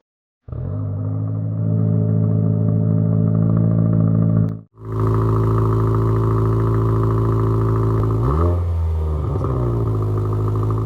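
Subaru WRX's turbocharged 2.4-litre flat-four engine running, its exhaust note steady and loud. It cuts out abruptly a little under five seconds in, then resumes, with a short dip and rise in pitch about eight seconds in.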